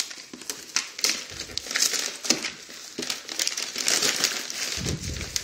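Paper crinkling and rustling in irregular handfuls as a gift box is opened and unpacked, with a muffled low bump near the end.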